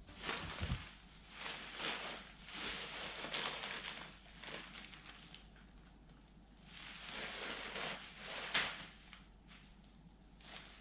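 Soft plastic packaging, bubble wrap and a plastic bag, crinkling and rustling as it is handled and squashed together. It comes in two stretches with a lull between, with a sharper crackle near the end.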